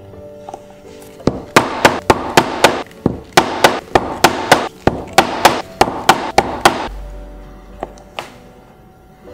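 Leather pricking iron struck repeatedly with a mallet, its prongs punching a row of stitch holes through the leather: about twenty sharp knocks at three to four a second, starting about a second in and stopping near seven seconds.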